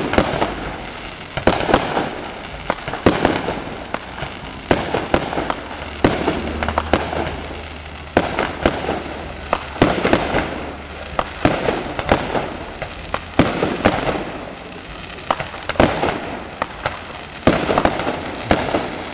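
Fireworks display: aerial shells bursting one after another in an irregular stream of sharp bangs, often several in quick succession, with crackling between them.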